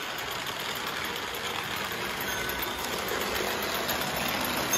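Postwar Lionel O gauge locomotives, a 681 steam turbine and a 1656 0-4-0 switcher double-heading a long freight train, running past on three-rail track. The motors and wheels make a steady rumble and whir.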